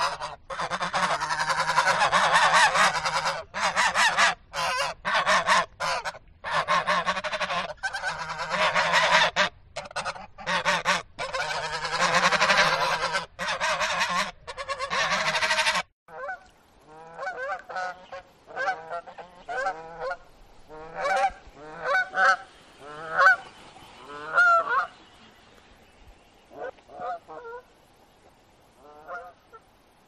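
A flock of geese honking, with many calls overlapping in a dense, continuous chorus for about the first sixteen seconds. After a short break come separate honks, one or two a second, thinning out near the end.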